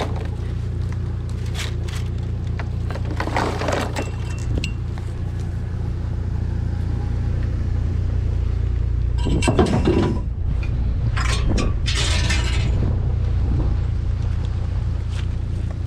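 A steady low engine rumble with several bursts of clattering and clinking, like hard objects knocking and scraping together. The loudest burst comes a little over halfway through.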